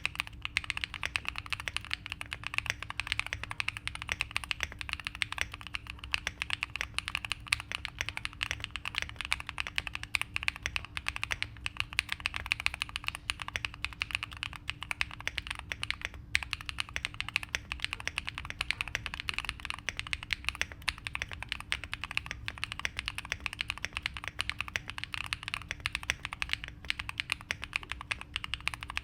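Continuous typing on a Neo70 aluminium mechanical keyboard with factory-lubed Neo white switches and Cherry-profile PBT keycaps: a dense, unbroken stream of keystrokes.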